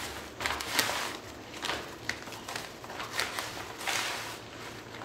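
Hands tossing and rubbing blanched green chillies with salt and turmeric in a newspaper-lined steel tray to work in the masala: irregular rustling, with a handful of louder rustles.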